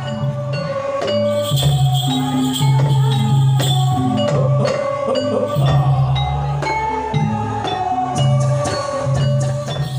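Live music accompanying a jaran kepang horse dance. Quick struck pitched notes and percussion play over a repeating low bass, without pause.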